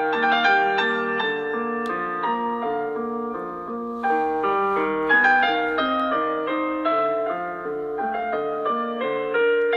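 Samsung Galaxy Note 20 Ultra ringtone playing: a piano-like melody of quick notes and chords with no pause.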